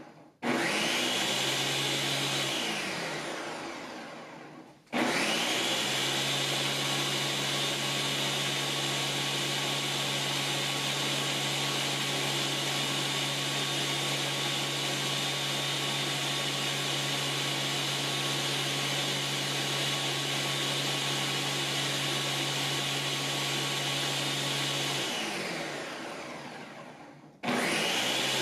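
Ninja 4-in-1 blender running its automatic Auto-iQ Extract program on a full 72 oz pitcher of vegetables, kale, ice and water. The motor starts, runs briefly, winds down with a falling pitch and stops. It restarts about five seconds in and runs steadily for about twenty seconds, then winds down again and restarts near the end. The stop-start pattern is the program's preset cycle of blending and pauses.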